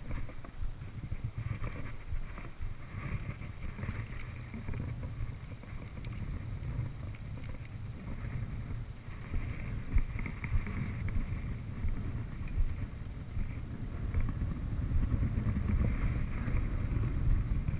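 Wind buffeting the microphone outdoors: a steady low rumble that keeps rising and falling, with no distinct events.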